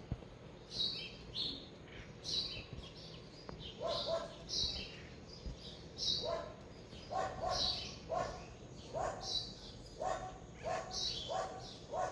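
Birds calling: short high chirps repeated throughout, joined about four seconds in by a quick run of lower, harsher calls repeating about twice a second.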